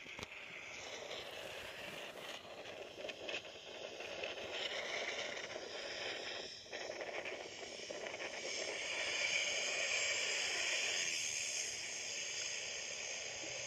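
A small plane's engine noise swells as it comes in low and passes overhead, playing back through laptop speakers.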